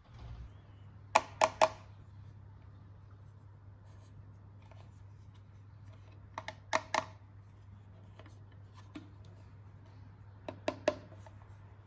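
Toys or packaging being handled, giving three short runs of two to four sharp clicks or taps: about a second in, in the middle, and near the end. A steady low hum lies under them.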